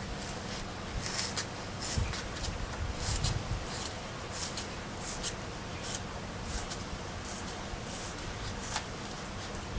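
Hobby knife cutting foam board, a run of short, irregular scratchy strokes of the blade through the foam.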